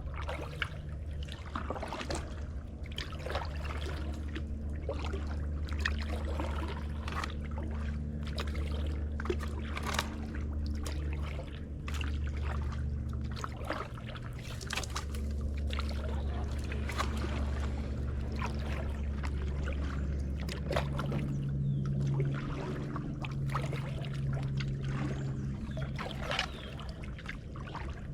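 Kayak paddling: a paddle dipping and water splashing and trickling off the blade in a string of short strokes, with a steady low hum underneath.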